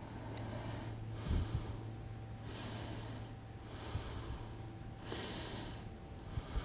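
A man breathing in and out close to the microphone, about six hissing breaths a second or so apart, with low thumps about a second in and again near the end, over a steady low electrical hum.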